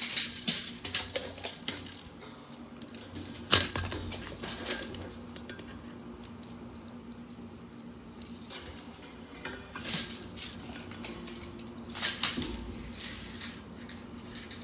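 Handling noise from stretching out and measuring a charging cable: scattered clicks and light metallic clinks, with a few sharper clicks about a quarter of the way in and again near two thirds and five sixths of the way through.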